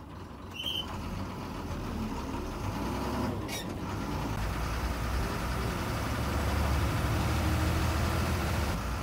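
Small bus's diesel engine running with road noise, heard from inside the cabin, the low rumble growing gradually louder.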